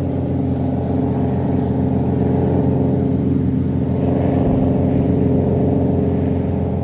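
A loud, deep, steady horn tone with many overtones, held without a break, with a dull low thump about four and a half seconds in.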